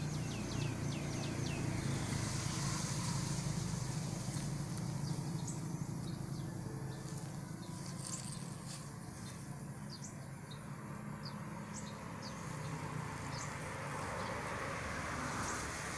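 Small birds chirping, a quick run of downward-sweeping chirps about a second in and then scattered single chirps, over a steady low motor hum. A rush of noise swells near the end.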